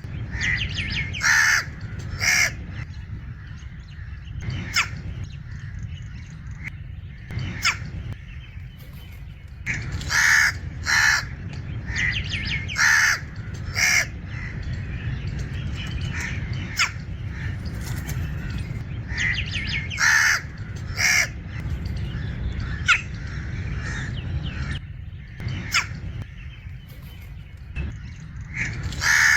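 Crows giving harsh, coughing calls every few seconds, often in pairs about a second apart, over a steady low rumble.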